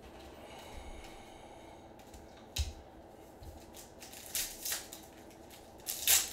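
Trading-card pack wrapper crinkling and tearing as gloved hands open it and handle the cards inside. There is a short sharp crinkle about two and a half seconds in, more crinkling bursts past the middle, and the loudest near the end.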